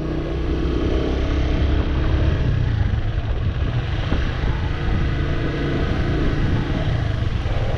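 Motorcycle engine running at a steady cruise, with wind rushing over the bike-mounted microphone.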